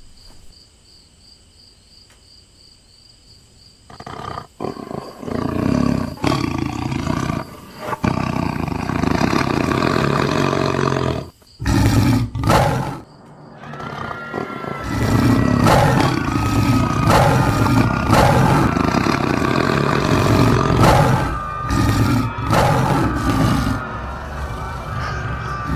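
Crickets chirping for the first few seconds. Then, from about four seconds in, a large wild beast roars and growls loudly again and again, with a short break about halfway.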